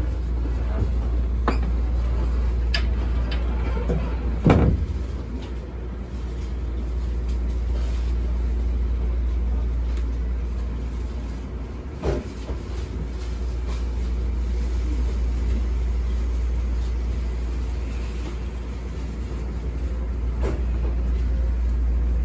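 Inside a stopped former Tokyo Metro 6000-series electric train: a steady low hum from the car's on-board equipment, rising and falling slowly. There are a few short knocks, the loudest about four and a half seconds in and another about twelve seconds in.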